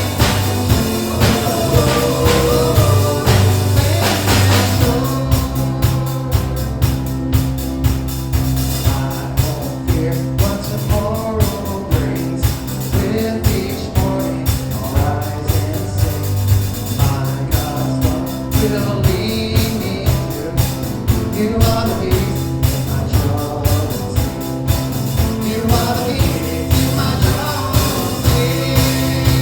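Worship band playing a song with a steady drum beat, with voices singing.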